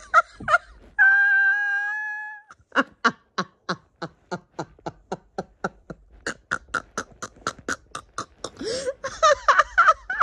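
A person's voice making non-speech sounds: a held high note about a second in, then a long run of quick, even pulses, about five a second, like rapid laughter, ending in a drawn-out vocal sound near the end.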